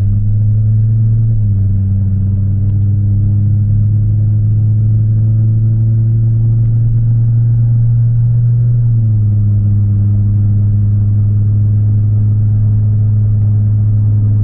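Chevrolet Colorado inline-five engine pulling steadily uphill at around 2,500 RPM, with its modified exhaust giving off a deep, steady drone inside the cab. This is the exhaust drone that a quarter-wave resonator is meant to cancel. The pitch steps up slightly about a second and a half in and drops back a little about nine seconds in.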